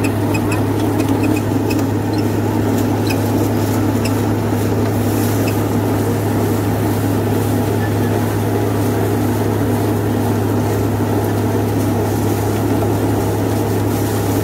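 John Deere 5310 tractor's three-cylinder diesel engine running steadily under load, driving a Saraswathi rotavator through the PTO as it chops banana leaves and stalks into mulch. Scattered light ticks of debris striking the machine in the first few seconds.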